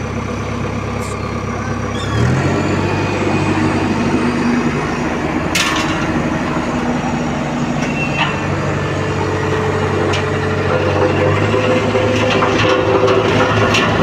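Tandem road roller's engine running steadily. About two seconds in the drum vibration is switched on: the hum changes pitch and grows a little louder, and it stays on. A sharp click sounds about five and a half seconds in.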